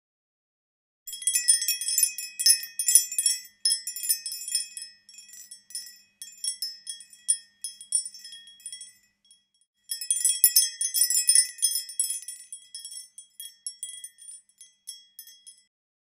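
Japanese glass wind chime (furin) tinkling: quick, high, ringing strikes of the clapper in two spells, each dense at first and then thinning out, the second starting after a short break about ten seconds in.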